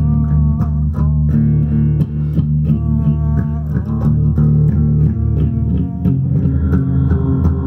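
Electric guitar being played: a run of picked notes over a heavy, sustained low end.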